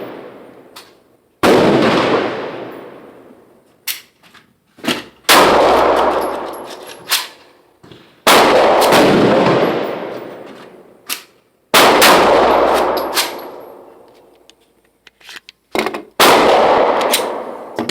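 Five loud gunshots a few seconds apart, each ringing out in a long reverberant tail, with fainter, shorter shots from neighbouring lanes in between.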